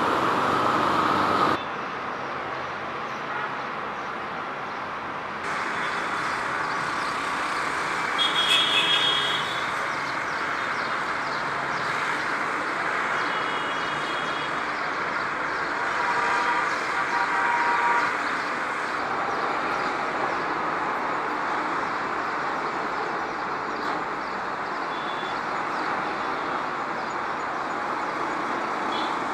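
Steady outdoor road-traffic noise, with a few short horn toots at scattered moments and abrupt jumps where clips are cut together.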